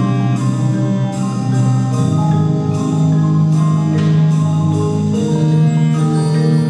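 Marching band playing its field show music: held brass and wind chords, with mallet percussion striking ringing notes about two to three times a second.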